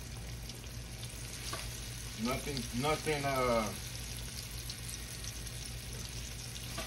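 Flour-dredged chicken wings frying in a skillet of hot vegetable oil: a steady sizzling hiss. A voice speaks briefly about two seconds in.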